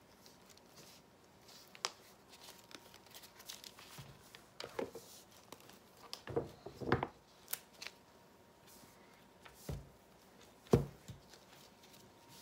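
A silicone mold liner being peeled off a loaf of soap: soft rustling and peeling with scattered taps and knocks, the loudest a sharp thump near the end.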